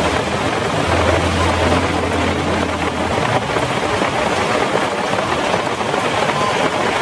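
Heavy rain falls steadily on the road. A low engine hum lies under it at first and stops about three seconds in.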